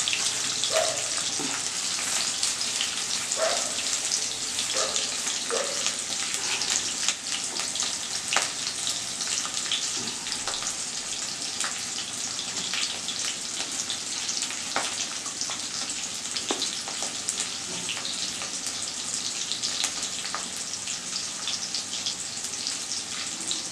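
Chopped tomato, capsicum and chilli sizzling in oil in a wok: a steady hiss with scattered crackles and pops.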